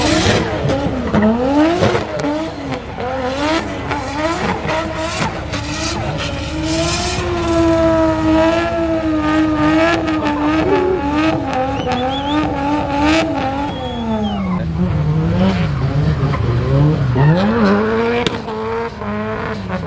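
Drift car's engine revving hard and holding high revs through a long slide, with the tyres squealing. The revs drop about fourteen seconds in, then climb again.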